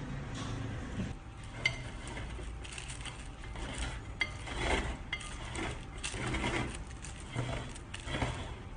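Chocolate frosting being spread and smeared over a cake, giving irregular soft scraping sounds, with two light metallic clinks of a metal spatula, about a second and a half in and again about four seconds in.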